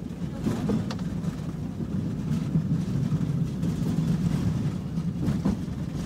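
Tram heard from inside the passenger car while running: a steady low rumble with a few faint clicks and knocks.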